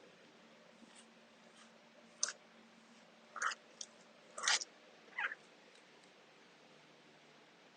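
Vinyl wall decal being worked onto the wall with a squeegee: about five short, scratchy swipes and crinkles of the film and its backing in the middle of the stretch, with quiet between them.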